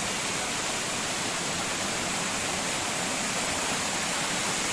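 Small river waterfall, water pouring and splashing in a steady, unbroken rush.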